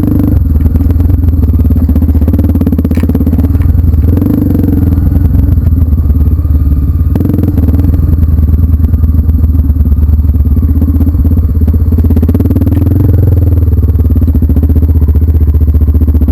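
A vehicle engine running loud and continuously, its pitch and strength rising and easing slightly as it works along, with clattering over it.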